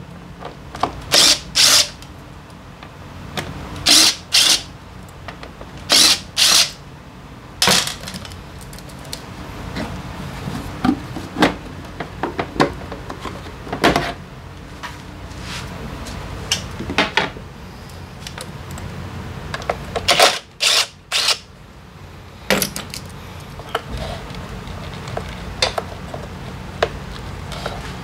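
Tools and metal or plastic parts clicking and clanking in about a dozen short, sharp bursts, some in quick pairs, over a steady low hum.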